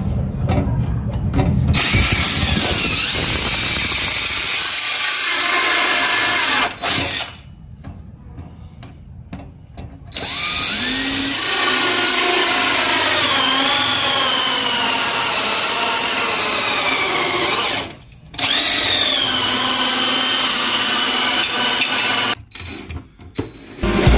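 Electric drill running in three long bursts with short stops between them, its motor pitch sagging and recovering as it bites: it is cutting the openings for built-in electrical sockets in a sideboard.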